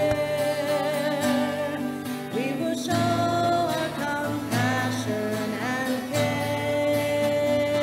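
A hymn sung to acoustic guitar accompaniment, with long held notes in the melody.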